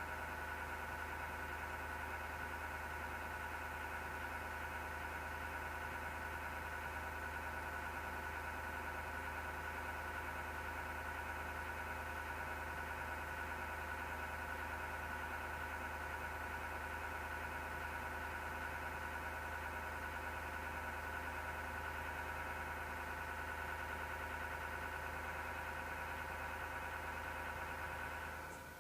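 PC power-supply fan running with a steady grinding whine, the noise of a dry, unlubricated fan bearing. It drops away at the very end.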